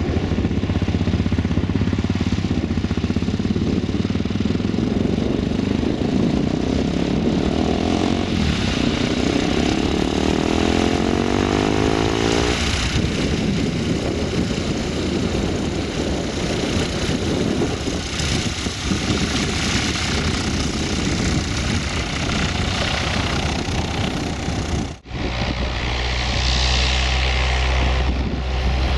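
Van's RV-4 kit plane's piston engine and propeller running at taxi power as it rolls past close by, the sound sweeping as it passes. After a sudden cut near the end, another RV's engine runs at a heavier, deeper drone on its takeoff roll.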